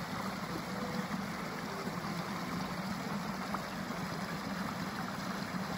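Small stream running steadily, the water rushing and gurgling over rocks.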